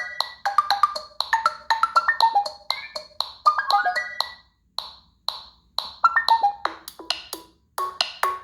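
A Google Pixel 3a preloaded ringtone playing: a quick melody of short, plucked or mallet-like percussive notes in rapid descending runs. About two-thirds of the way through, the pattern changes to a repeating figure with deeper notes.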